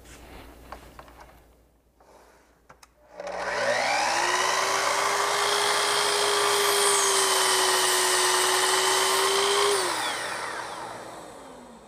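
Festool Kapex sliding compound miter saw starting up about three seconds in and running at speed with a steady whine as it makes a crosscut. Near the end it is switched off and winds down, its pitch falling.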